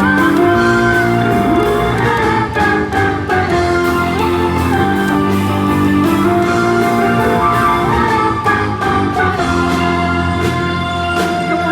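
Worship-song music: digital keyboard chords and a melody over a steady beat.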